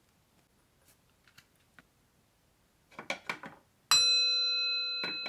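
Buddhist altar bell (rin), a metal bowl, struck with its striker and ringing on with a long steady tone and several overtones, then tapped again lightly about a second later. A few small clicks and taps just before the first strike.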